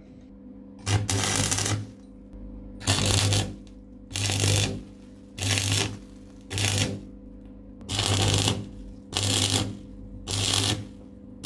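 Stick (electrode) arc welder crackling and buzzing in about eight short bursts, each under a second, as the arc is struck again and again to lay short tack welds on the steel joint. A steady low hum sits under the gaps between them.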